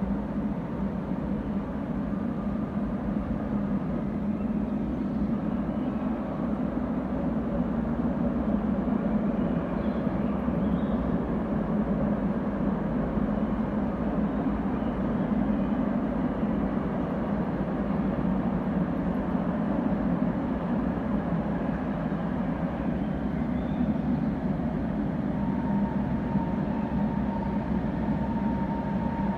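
Tram approaching through a tunnel: a steady low rumble, with a thin steady whine joining about 25 seconds in.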